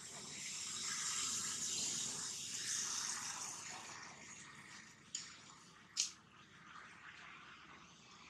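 Steady high hiss of outdoor background noise that swells and then fades, with two sharp clicks about a second apart in the second half, the later one louder.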